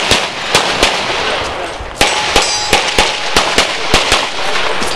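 Pistol shots fired in quick strings: three shots in the first second, a pause, then a faster run of about nine shots from about two seconds in.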